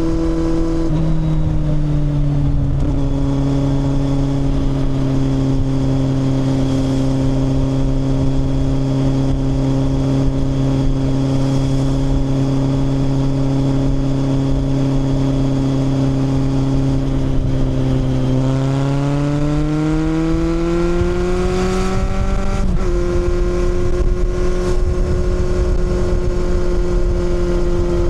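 Kawasaki motorcycle engine under way at a steady cruise. About two-thirds of the way through it accelerates, its pitch rising smoothly for a few seconds, then it drops sharply as at a gear change and settles at a steady note again.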